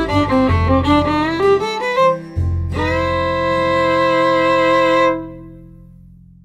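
Background music led by a violin: a quick run of notes over a bass line, then a held final chord about two and a half seconds in that fades out.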